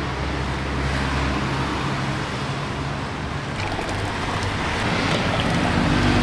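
Steady roadside traffic noise, with engine hum that swells as a vehicle passes near the end.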